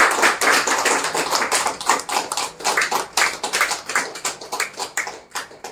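A small group clapping: dense applause that thins to a few scattered claps near the end and stops.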